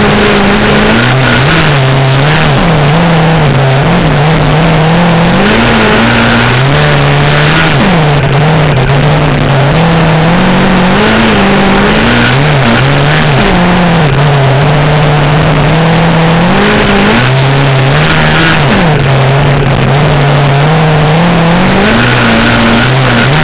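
Midget race car engine heard from the cockpit, running hard and rising and falling in pitch every few seconds as the car laps a small dirt oval, on the throttle and lifting again.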